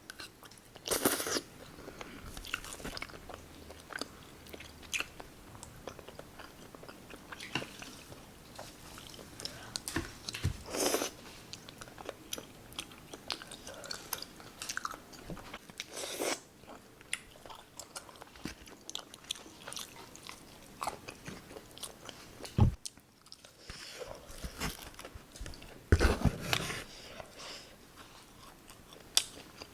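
Close-miked eating: a person biting and chewing food, with irregular crunches and several louder bites scattered through.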